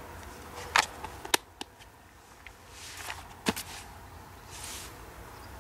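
Hands handling a plastic bait box and a fishing hook and line: a few sharp clicks, two close together about a second in and another a little past halfway, with soft rustles between.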